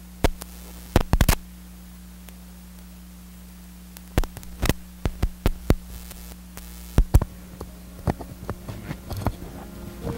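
Steady electrical mains hum on an old video recording, with irregular sharp clicks and knocks scattered over it: a couple about a second in, then a run of them from about four seconds on.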